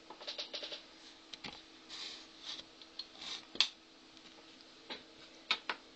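Hard plastic Lego pieces clicking and tapping as they are handled and set down on a table: a quick run of small clicks near the start, a sharper single click about halfway through, and two more clicks near the end.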